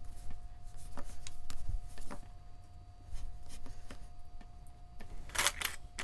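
Craft knife cutting a soft air-dry clay coil into short pieces on a canvas-covered work board: a few faint taps of the blade, then a brief louder scrape about five seconds in.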